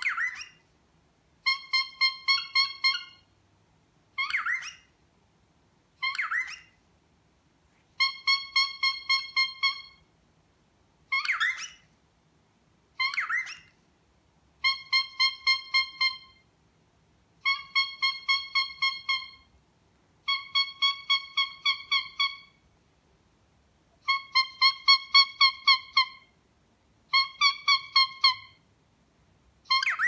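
Pet cockatiel honking: about seven nasal, trumpet-like honks, each a quick run of pulses lasting one and a half to two seconds, with short rising squeaks between them, its mumbled "hello Alex". The honk is a learned call, an exaggerated copy of its owner squeaking back at it.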